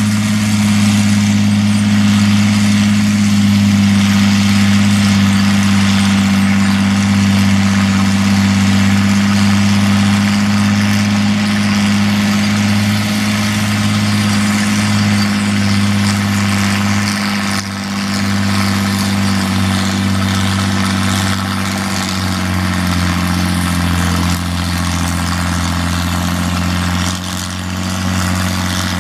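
Fiat 120C crawler tractor's inline six-cylinder diesel engine running steadily under load while pulling a plough through the soil. Its pitch drops slightly about three-quarters of the way through and stays lower.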